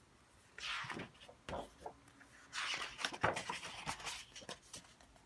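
Paper pages of a large picture book being turned by hand: two rustling swishes, the second longer, about a second apart.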